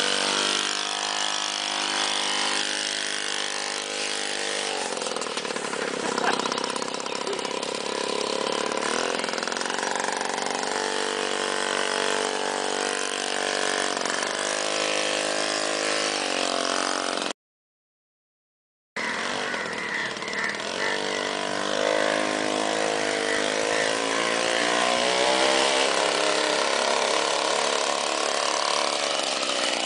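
Monowheel's engine running, its pitch rising and falling as it is throttled. The sound drops out entirely for about a second and a half a little past halfway.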